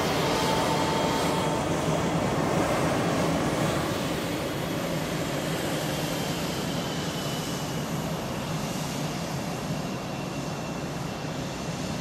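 Aircraft engine noise from a plane flying at an airshow: a loud, steady rush with a faint whine through it, easing off slightly from about four seconds in.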